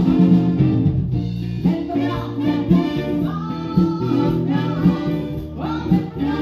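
A live band playing, with a woman singing lead into a microphone over drums and guitar through the PA.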